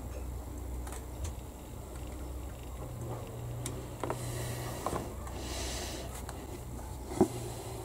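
Faint clicks and taps of a plastic scale-model part and metal tweezers being handled, over a steady low hum, with one sharper knock about seven seconds in.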